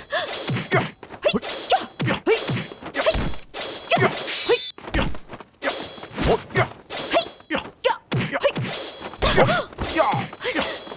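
Film fight-scene sound effects: a fast, irregular run of punches and kicks landing as whacks and thuds, mixed with the fighters' short grunts and shouts.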